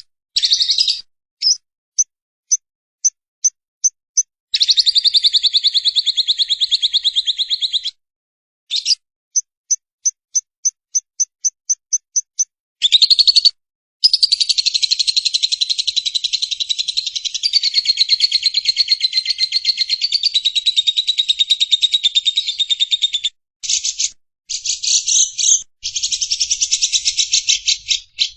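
Lovebird 'ngekek' song: long, fast, chattering trills, broken by runs of separate short high chirps at about three a second.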